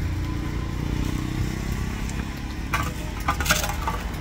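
Steady low rumble of a motor vehicle running nearby, with a brief cluster of sharp clicks and crackles about three seconds in.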